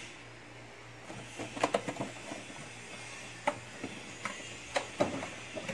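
Scattered clicks and short rustles of a clear plastic cupcake container being handled and taken from a refrigerator shelf, over a low steady hum.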